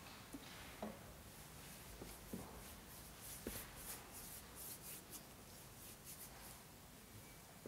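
Faint rustling of pages with a few soft taps at a lectern, as the reading is readied at the lectern microphone.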